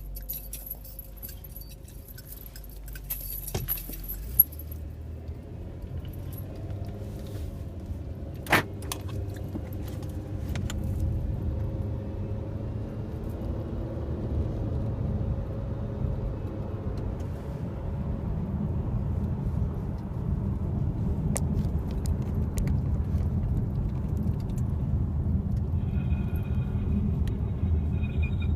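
2008 Dodge Avenger driving, a low rumble that grows steadily louder, with a jingling rattle and scattered clicks, and one sharp knock about eight and a half seconds in. It is the noise the car makes when the steering wheel is turned left without braking.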